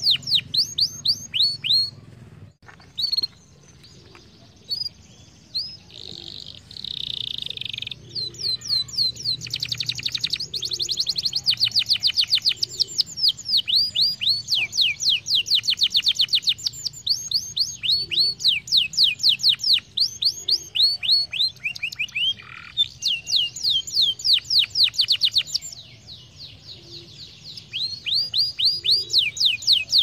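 Domestic canary singing: long trills of fast, evenly repeated high sweeping notes, changing from one note type to the next, with a sparser stretch a couple of seconds in and a short lull near the end.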